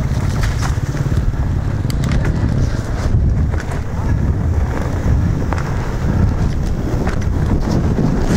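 Wind buffeting the helmet-camera microphone during a fast downhill ride on a rough dirt trail, with scattered rattles and knocks from the mountain bike jolting over ruts and rocks.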